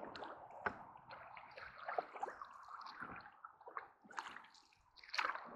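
Canoe paddles dipping and pulling through calm water, with irregular splashes, drips and gurgles, and a louder splash near the end.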